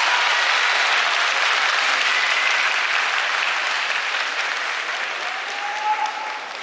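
Sumo crowd applauding and cheering, with a few shouting voices in it, loud at first and dying down over the last couple of seconds.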